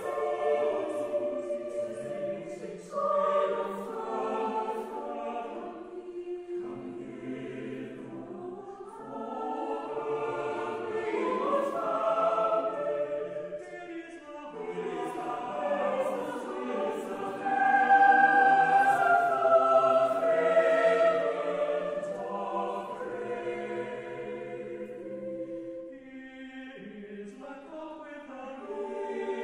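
A mixed-voice choir singing a slow, unaccompanied part-song in several sustained parts, swelling to its loudest a little past the middle before falling back quieter.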